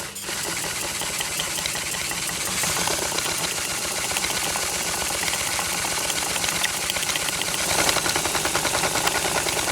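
Homemade crankshaft, connecting-rod and piston model running steadily: a continuous fast mechanical rattle of fine clicks over a steady hum. The model is freshly greased and its piston clearances are set correctly.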